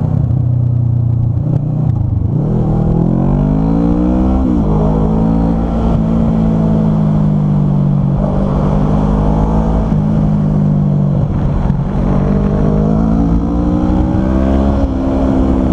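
Kawasaki motorcycle engine under way on a twisty road. The revs climb for a couple of seconds, drop sharply about four and a half seconds in, hold steady, then climb again and ease off near the end, over steady wind and road rush.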